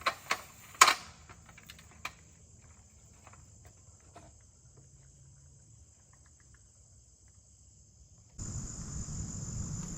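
Steady high-pitched chirring of crickets or similar insects. A few sharp knocks come in the first two seconds, the loudest about a second in, and a louder low noise sets in near the end.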